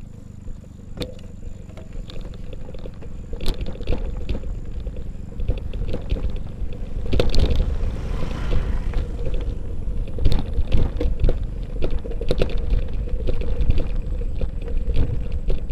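Bicycle rattling and clicking as it rides over a bumpy dirt track, over a steady low rumble of tyres and wind on the mount-level microphone; the knocks get louder and more frequent after a few seconds.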